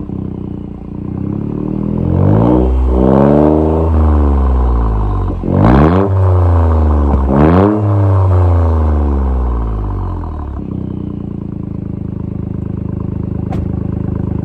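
Toyota GR Yaris's 1.6-litre turbocharged three-cylinder engine heard at its twin exhaust tailpipes, revved three times, each rev climbing and dropping back. It settles to a steady idle about ten seconds in.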